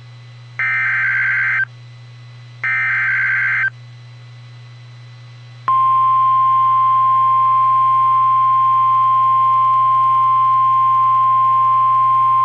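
Emergency Alert System header on NOAA Weather Radio: two one-second bursts of SAME digital data tones, a pause of about two seconds, then the steady 1050 Hz weather radio warning alarm tone, which comes on about six seconds in and holds.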